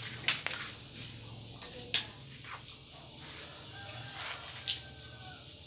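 Two sharp cracks, about a second and a half apart, of boiled balut duck eggshells being broken for peeling, over a steady high-pitched insect drone.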